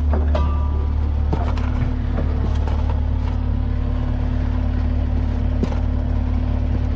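Heavy equipment engine running steadily at a constant speed, with a few short metallic knocks and clanks over it.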